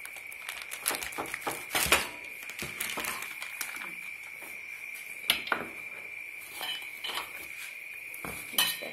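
A new gas stove being unpacked: its plastic wrap rustles while its metal parts clink and knock against each other. There are two sharp knocks, about two seconds in and again about five seconds in. A steady high-pitched whine runs underneath.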